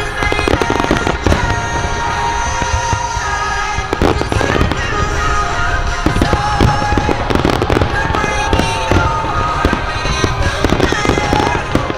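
Aerial fireworks going off in quick succession, many sharp bangs close together, over music playing along with the show.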